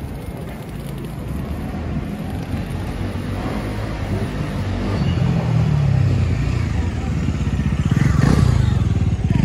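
A motor vehicle's engine grows louder as it approaches and is loudest about eight seconds in, over steady street traffic noise.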